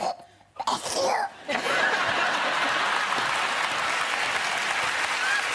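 A brief strained, voice-like sound near the start, then a studio audience applauding with laughter from about a second and a half in.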